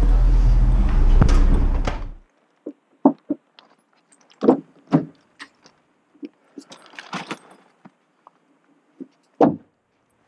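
Loud rumbling wind and handling noise on a moving body-worn camera, cut off suddenly about two seconds in. Then a string of short, scattered clicks and knocks from a car door being handled.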